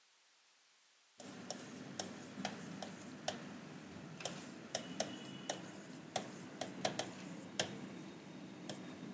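Irregular light taps and clicks of writing on a board, over a low steady room hum. They begin about a second in, after a moment of silence, with a brief faint squeak near the middle.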